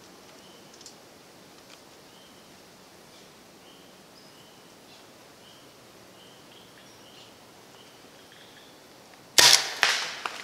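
A bow shot at a deer: a sudden sharp crack of the release near the end, followed about half a second later by a second crack and a short decay.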